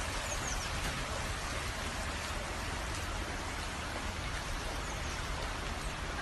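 Steady, even rush of flowing water from a burst water main flooding the street.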